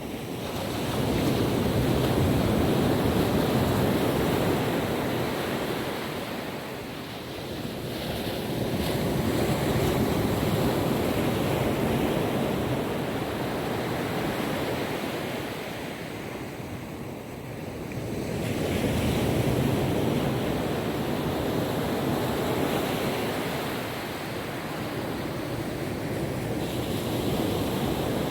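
Calm ocean waves washing onto a beach, the surf swelling and fading in slow surges several seconds apart.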